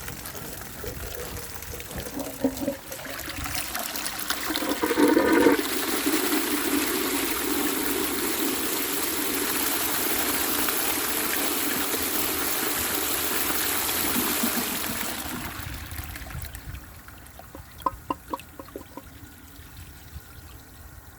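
1931 Maples Foundry 'Burlington' cast-iron pull-chain toilet cistern being flushed: a metallic clang about four to five seconds in, then water rushing down for about ten seconds before tailing off into trickles and drips.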